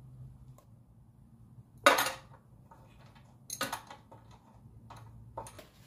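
Sharp metallic clinks of small steel parts and tools being handled at the open crankcase of a Predator 212 engine: one loud clink about two seconds in, then a few lighter clicks and taps.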